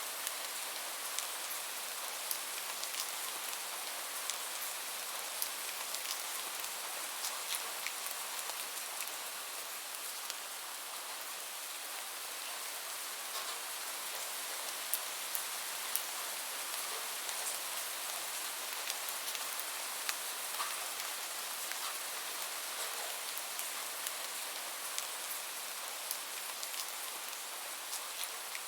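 Light rain falling steadily, a soft even hiss sprinkled with many small drop ticks.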